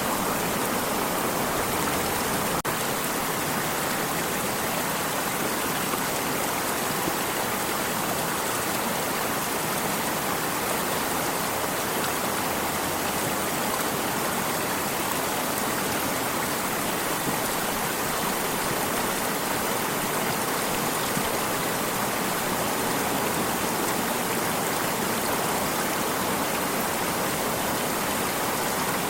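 A water stream flowing steadily, an even rushing hiss with no change in level.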